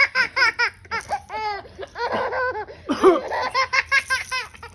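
Baby laughing in a rapid run of short, high-pitched giggles, one after another.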